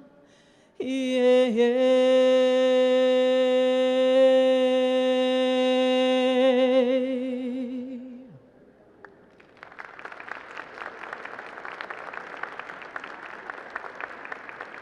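A woman's voice holding one long final note of an unaccompanied Navajo-language song for about seven seconds, wavering near its end as it fades. After a brief pause the audience applauds.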